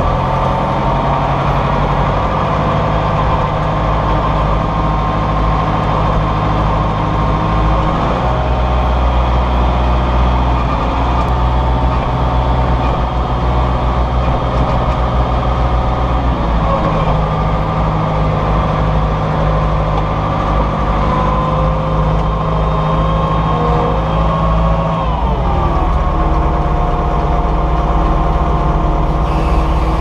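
County tractor's diesel engine running steadily while ploughing, heard from inside the cab. Its note shifts a couple of times and falls about 25 seconds in.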